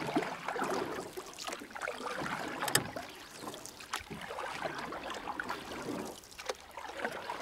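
Canoe paddle blade pulling through lake water, heard with the microphone under the surface: muffled rushing and bubbling water full of small clicks, swelling with a few stronger surges.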